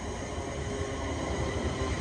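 Class 350 Desiro electric multiple unit approaching along the platform: a low rumble of wheels and running gear with a faint electric hum, growing steadily louder as it nears.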